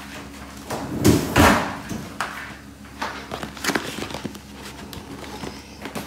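Cardboard ice cream boxes being handled and moved: two loud knocks about a second in, then several lighter taps and scrapes.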